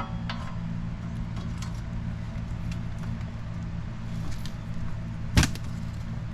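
Hand tools clinking on metal while the wheel hub's mounting bolts are worked loose: scattered light clicks and one loud metallic knock about five seconds in, over a steady low hum.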